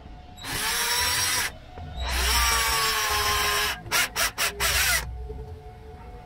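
Cordless drill with a step drill bit boring out a hole in a small plastic part: two runs of a second or two, then several quick short pulses of the trigger and a brief final run.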